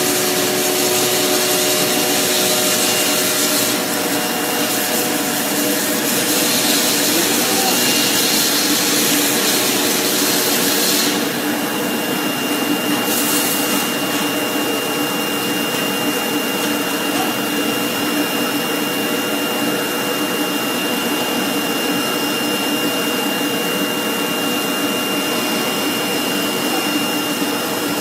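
CNC foam-cutting table running, its knife head cutting through a thick foam sheet: a steady whirring hiss with a few faint steady tones. The higher part of the hiss drops off about eleven seconds in.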